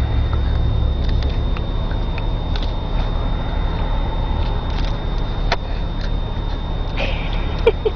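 Steady low rumble of a car's cabin on the road, with a few faint clicks and a short sharp sound near the end.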